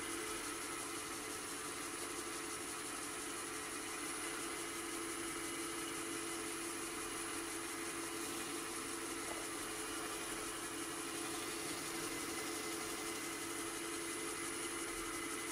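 Wood lathe running steadily at low speed: a constant motor hum with a few fixed tones, while a waxing cloth is held against the spinning yew vase.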